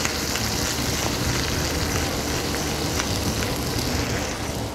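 Tomatoes frying in hot oil in a smoking-hot pan: a steady sizzle with scattered small pops, over a low steady hum.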